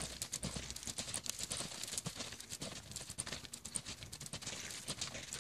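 Hoofbeats of a saddled horse cantering in circles on a lunge line over soft dirt arena footing: a steady run of short, irregular clicks and thuds.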